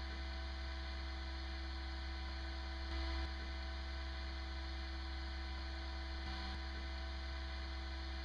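Steady electrical mains hum, a low buzz with a row of overtones, with a slight swell about three seconds in.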